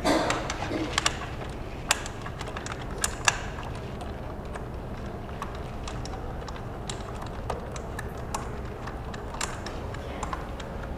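Irregular clicks and taps of hands working the fittings at the joint between two LED display panels as the panels are fastened together. The loudest clicks fall in the first few seconds, then lighter scattered ticks follow.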